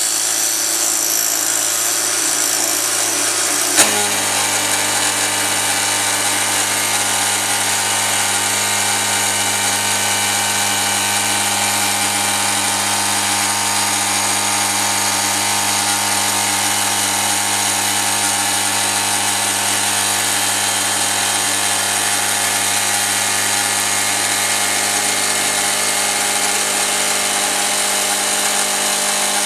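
CNC mill spindle at 7000 RPM driving a 2-flute 1-inch insert cutter through stacked 6061 aluminium plates in a heavy roughing cut, a loud, steady cutting sound. A sharp click about four seconds in, after which a deeper steady hum joins as the load settles at the faster 40-inches-per-minute feed.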